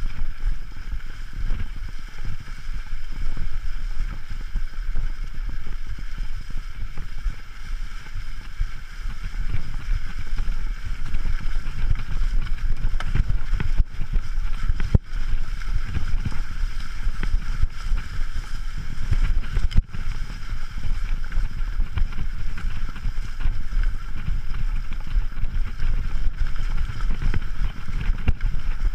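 Riding noise of a mountain bike on a rough, leaf-covered trail: a steady low rumble and wind buffeting the camera microphone, with the bike rattling over the ground.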